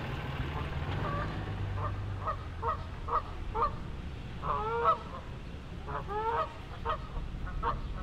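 Canada geese honking: a steady run of short, nasal honks, roughly two a second, a few of them longer with a bending pitch. A low steady hum underneath fades out about two seconds in.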